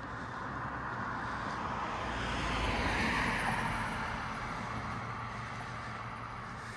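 A car driving past, its noise swelling to a peak about three seconds in and then fading away.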